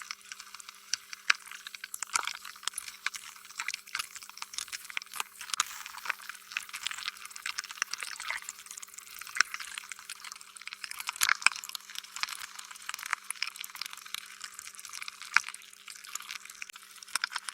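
Slime being squished: a continuous, irregular run of small wet, sticky clicks and pops, with a few sharper pops standing out.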